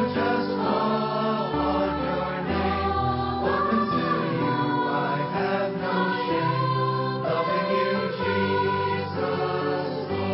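Choir singing a Christian hymn over held instrumental chords and bass notes.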